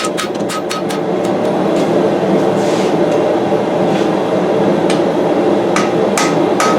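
Hammer blows on hot steel at an anvil while forging a knife blade, each strike with a short metallic ring: a quick run of strikes at the start, a few spaced blows in the middle, and another run near the end. Under them, the steady rushing of a gas forge's burner.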